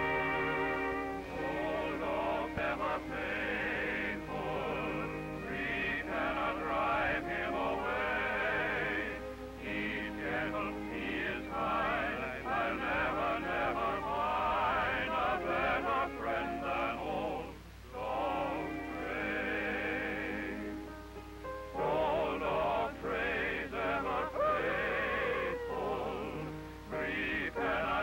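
Early cartoon soundtrack music in an operatic style, with warbling vibrato melody lines. A steady low hum runs underneath, and the music thins briefly a little past halfway.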